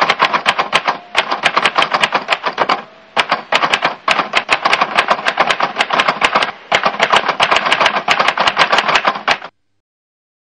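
Rapid typewriter-style key clatter, a sound effect laid under an on-screen text caption: many sharp clicks a second in fast runs, with two brief pauses, stopping about a second before the end.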